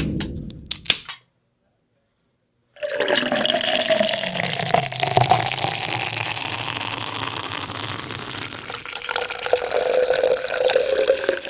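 Water rushing and splashing steadily for about nine seconds, starting after a short gap of silence. The first second holds a few sharp clicks.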